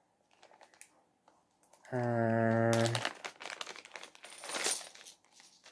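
A man's drawn-out, flat hum of hesitation for about a second. Then crinkling packaging and small clicks as the Monopoly playing pieces are handled.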